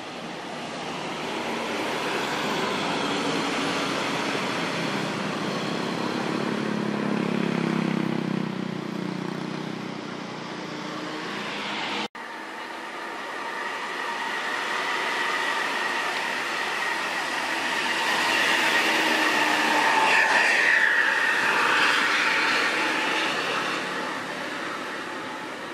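Large diesel tour buses driving up and past through a sharp hairpin, engines working hard under load, with motorcycles going by. The sound breaks off abruptly about halfway through. In the second half a steady high whine sits over the engine noise.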